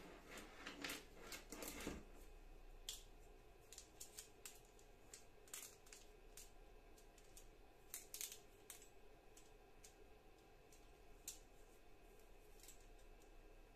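Faint, scattered light clicks of a Makita chainsaw's steel saw chain being handled and fitted link by link around the guide bar.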